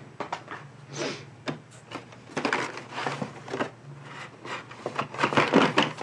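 Cardboard shipping case and carded plastic blister packs rustling and knocking as die-cast toy cars are pulled out of the box. A run of short scrapes and rattles, loudest near the end.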